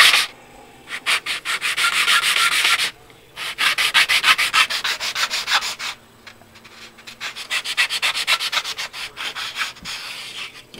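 A plastic model-kit wall section being hand-sanded flat on a sheet of sandpaper: three runs of quick back-and-forth scraping strokes with short pauses between them.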